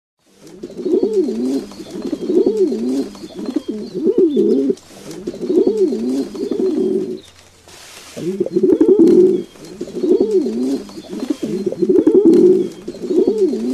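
Pigeon cooing: a string of low cooing phrases, each about a second long, with a short break a little past halfway.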